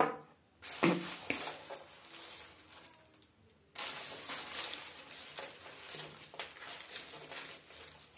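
Thin plastic carry bag crinkling and rustling as a hand rummages inside it: a short spell in the first few seconds, a brief pause, then steady crinkling from about four seconds in.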